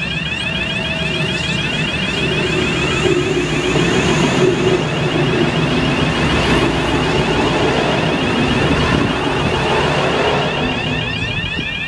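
A V/Line VLocity three-car diesel multiple unit passing. The rumble of its diesel engines and wheels on the rails grows, is loudest as the cars go by, and fades away. A rapid, high-pitched repeating warning tone sounds throughout.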